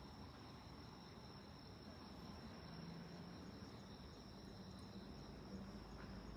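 Insects singing steadily as a faint, thin, high continuous trill, over a faint low hum.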